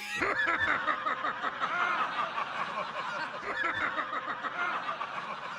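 A crowd of people laughing and snickering together, many overlapping voices.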